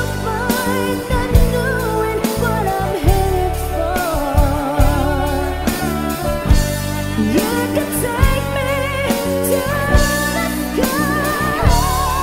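A woman singing a song with wavering held notes, backed by a band with bass and drums.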